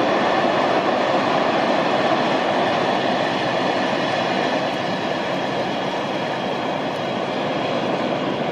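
Freight train of tank wagons rolling past, a steady noise of steel wheels running on the rails that eases off slightly in the second half.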